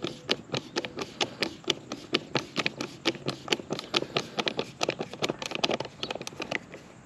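Hand screwdriver driving the cover screw into the threads of a GFCI receptacle. It makes a quick, even run of sharp clicks, about five or six a second, that thins out near the end.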